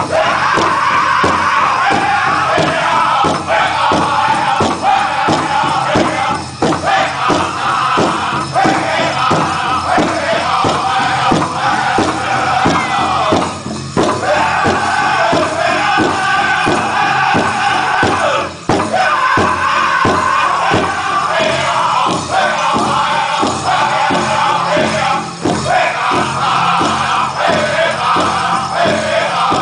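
Powwow drum group singing in unison over a steady drumbeat, with short breaks between phrases.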